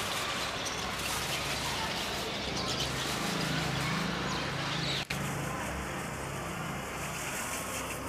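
A flock of rosy starlings chattering: a dense, unbroken mass of overlapping chirps and squeaks. A low vehicle-like hum sits under it through the middle, and the sound drops out for an instant at about five seconds in.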